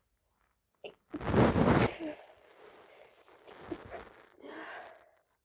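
A woman's sneeze about a second in: one loud, short, noisy burst, part of a sneezing fit. Fainter noisy sounds follow.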